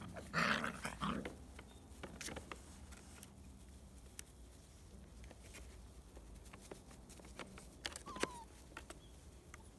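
Black field-line Labrador retriever puppies, about five weeks old, make a short vocal sound about half a second in as they move about on dry grass. After it come faint scattered small clicks and rustles.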